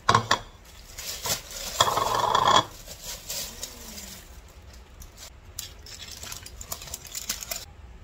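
Food being unpacked at a kitchen counter. A sharp clink of a ceramic dish comes right at the start. About two seconds in, a plastic carrier bag rustles loudly for under a second, followed by scattered light crinkling and handling clicks of bag and foil wrap.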